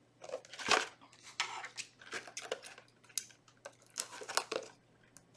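Card-box packaging being handled, crinkling and rustling in a quick string of short bursts with a few light clicks, stopping shortly before the end.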